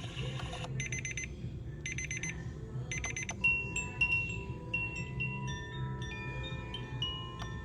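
A sunrise alarm clock's speaker previewing its built-in alarm sounds. First come three short bursts of rapid electronic beeping, then, from about three and a half seconds in, a chime melody of single ringing notes at changing pitches that overlap.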